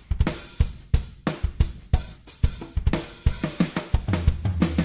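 Sampled drum-kit groove at 90 BPM playing back in Superior Drummer 3, with kick, snare, hi-hat and cymbal hits in a steady rhythm. A conga pattern is layered quietly over it.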